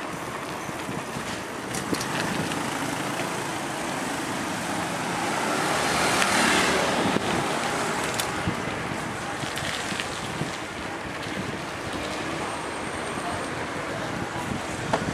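Road traffic noise heard from a bicycle on a town street, a steady hiss and rumble that swells to its loudest about six seconds in and then eases back.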